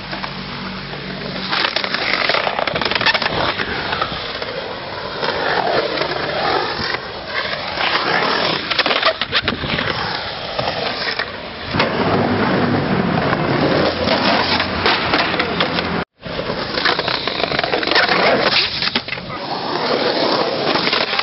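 Skateboard wheels rolling and carving across the concrete walls of a skate bowl, with repeated sharp clacks of the board. The sound cuts out for an instant about sixteen seconds in.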